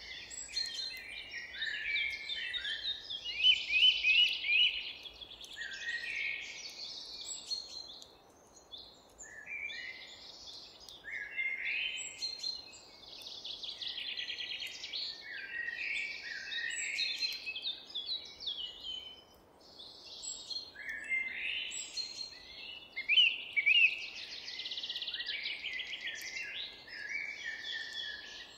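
Several songbirds singing together in a chorus of quick trills, short sweeping chirps and whistled notes, with brief lulls about eight and nineteen seconds in.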